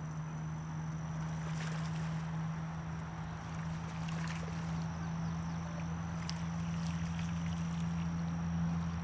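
A hooked largemouth bass splashing at the water's surface as it is reeled in, a few brief splashes over a steady low hum.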